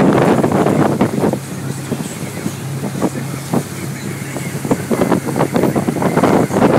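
Tigé wakeboard boat's inboard engine running steadily under way, with wind buffeting the microphone and the wake churning behind. The wind noise eases from about a second in until near the end, leaving the low engine hum clearer.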